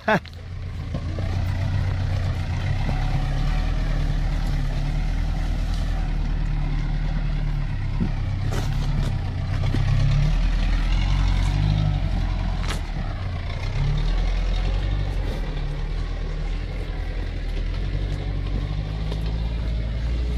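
Off-road 4x4's engine running at low revs as it crawls down a rocky trail, its pitch stepping up and down as the throttle is worked.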